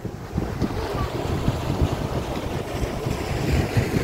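Wind buffeting the microphone in an uneven low rumble, over the wash of small waves running up the beach.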